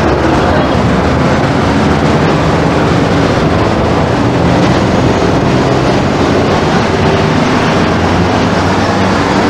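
Hong Kong double-decker electric tram running along its street track, a loud, steady rumbling noise heard on board.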